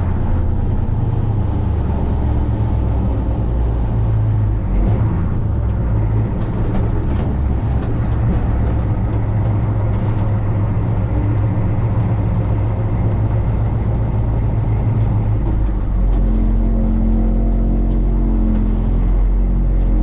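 Truck engine running steadily while driving; about sixteen seconds in the engine note changes and gets a little louder.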